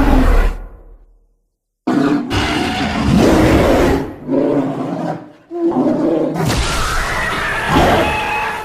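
Roaring and grunting vocal sound effects for a gorilla-like cavewoman, in several separate loud roars with sudden, edited-looking gaps between them.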